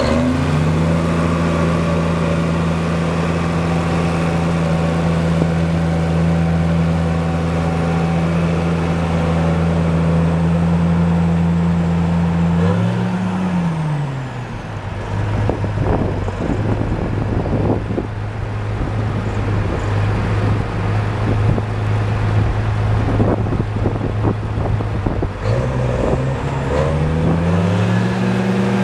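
Versatile 876 tractor's Cummins LTA10 six-cylinder diesel running at raised revs as the tractor drives, dropping to lower revs a little under halfway through and climbing again near the end.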